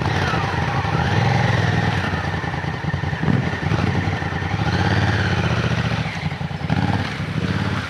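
Honda Africa Twin CRF1000L's parallel-twin engine running as the bike pulls away on a muddy dirt track, its revs rising and falling with the throttle.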